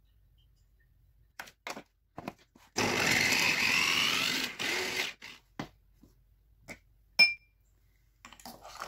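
Electric mini chopper running for about two seconds, its blades grinding garlic, ginger and oil into paste, with a few clicks of the lid before it starts. Afterwards come scattered clicks, a sharp metal clink, and a spoon scraping the plastic bowl near the end.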